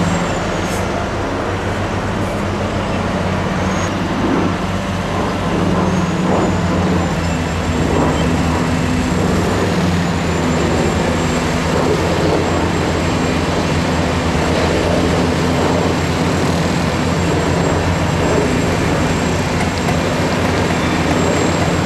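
Heavy diesel engines of excavators and a dump truck running steadily, a deep engine note whose pitch shifts slightly now and then.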